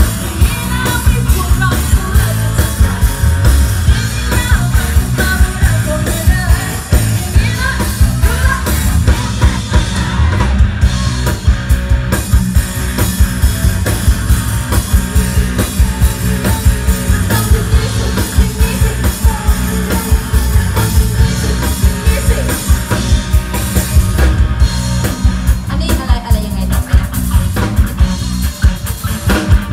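Live band playing an upbeat pop-rock song on drum kit, bass guitar and keyboard, with a woman singing lead into a microphone over a steady, driving drum beat.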